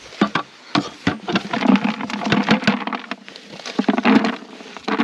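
Boiled peas and breadcrumbs being tipped from an aluminium pot into a plastic bucket and mixed by hand into groundbait: a dense run of quick crunchy rustles and scrapes.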